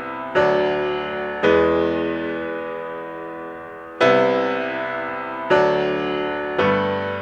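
Slow, quiet background music: five chords struck about one to two and a half seconds apart, each left to ring and fade away.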